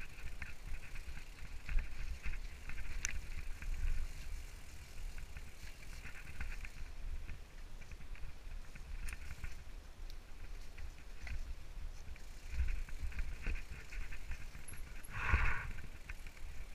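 Mountain bike riding down a rough, rocky trail, heard from a helmet camera. Wind rumbles on the microphone under a running clatter of clicks and rattles from the bike over the ground. A brief louder burst comes near the end.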